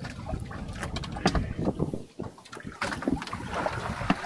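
Irregular knocks and clatter on a small fishing boat, with wind on the microphone and water noise.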